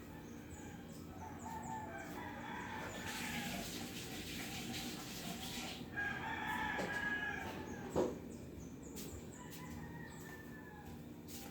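Roosters crowing repeatedly, with a few seconds of scratchy noise in the middle and a single sharp knock about eight seconds in.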